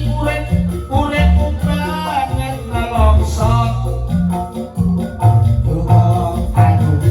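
Live band music with a singer's voice over a heavy, pulsing bass line.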